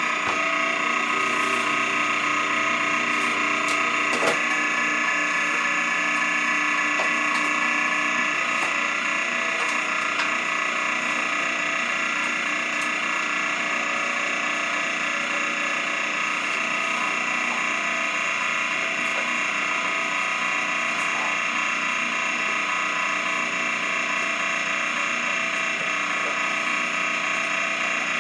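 Heavy-duty 1.5-horsepower electric meat grinder running steadily as it grinds cooked meat scraps, its motor a constant whine, with a single click about four seconds in.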